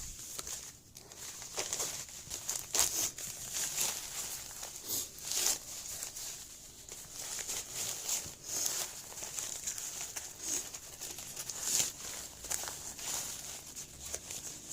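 Packaging and a pouch bag being handled and unwrapped, crinkling and rustling in irregular short bursts.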